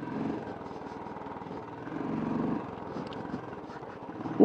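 Royal Enfield motorcycle engine running at low speed, its firing pulses steady, getting louder for a moment about two seconds in.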